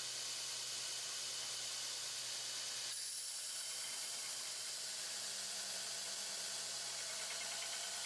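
A machine running steadily: an even hiss over a low motor hum, whose tone shifts slightly about three seconds in.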